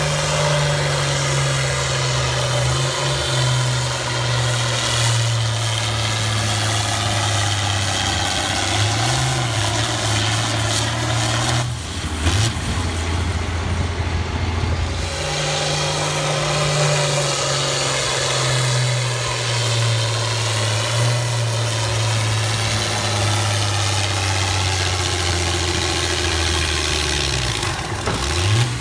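Farm tractor engine working hard at full load, pulling a tractor-pull sled, its pitch sinking slowly as the load bogs it down. The engine note breaks off about twelve seconds in, and a few seconds later a second run starts at a higher pitch and again sinks under load.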